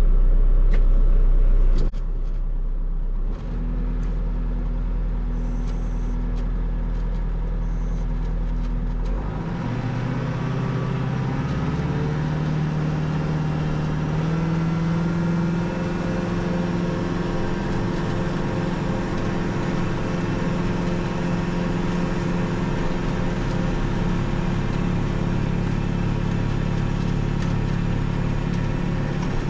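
Kubota MX6000 tractor's diesel engine running with the WoodMaxx SB72 snowblower. About ten seconds in the engine speeds up over a few seconds, then holds a steady higher speed as the snowblower works.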